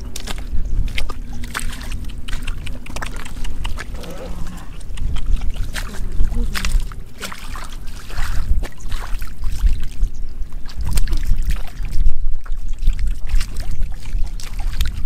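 Splashing and sloshing in shallow muddy water, with many irregular sharp splashes from fish being handled and rubber boots stepping through the mud, over a steady low rumble.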